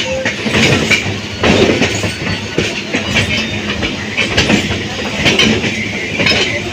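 Suburban electric local train running, its wheels clattering on the rails with irregular knocks over a steady rumble.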